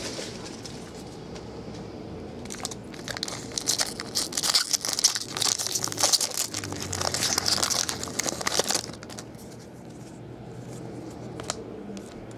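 Foil wrapper of a jumbo trading-card pack crinkling and tearing as it is ripped open by hand, from about two seconds in until about nine seconds, then going quieter with a few light ticks as the cards are handled.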